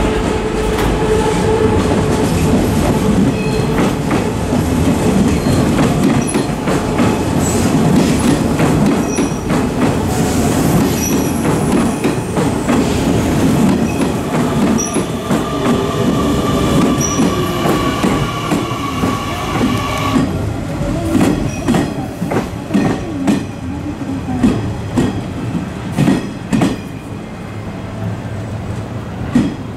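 Electric commuter train moving along the platform with steady running noise and a faint whine. In the last third its wheels clack over the rail joints, the clacks coming further apart.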